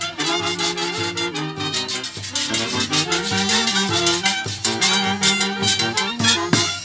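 Live Peruvian folk orchestra playing: a section of saxophones and a clarinet carry the melody over a drum kit and a metal shaker keeping a steady beat.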